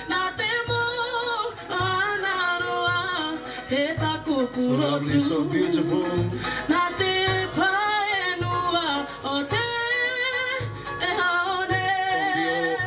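Live Cook Islands string-band music: voices singing a melody with vibrato over strummed ukuleles, with a steady low beat underneath.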